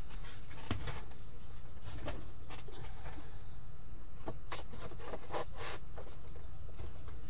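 Hands handling trading cards and card packaging: scattered short rustles, scrapes and light clicks, busiest about two-thirds of the way through, over a steady low hum.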